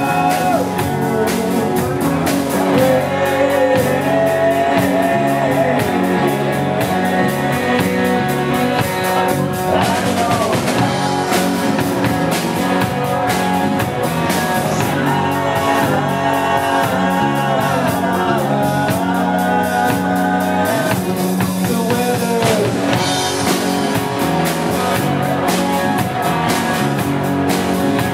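Live rock band playing a song: a male singer over strummed acoustic guitar, electric guitar and a drum kit keeping a steady beat.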